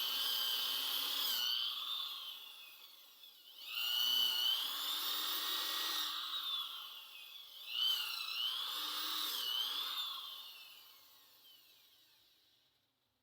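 Electric grinder working the steel of a file being shaped into a knife, in three long passes, its high whine dipping in pitch under load and rising again. It winds down near the end.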